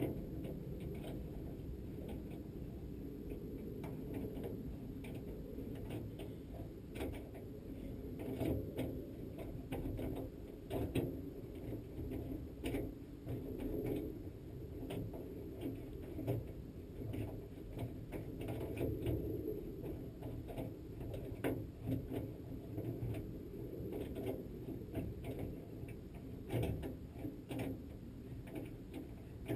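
Drill boring into the steel shaft of a C10 door regulator: a steady low running with irregular clicks and ticks as the bit cuts.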